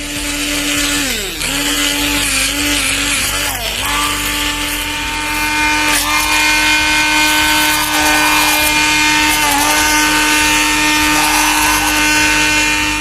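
Electric hand blender motor running steadily at high speed, whipping coffee, sugar and water into thick foam. Its pitch sags briefly a few times as the load on the beater changes.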